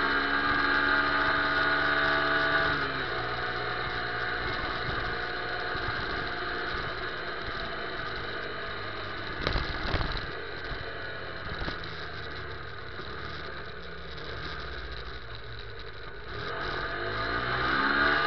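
Motorcycle engine running as the bike rides along, with road and wind noise; the engine note drops about three seconds in as it eases off, there are a couple of short knocks around the middle, and it grows louder again near the end as it pulls away.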